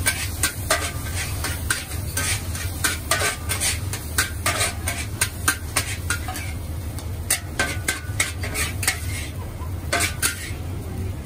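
Metal spatula scraping and clanking against a carbon-steel wok, many quick irregular strokes as noodles are stir-fried and tossed, over a steady low hum.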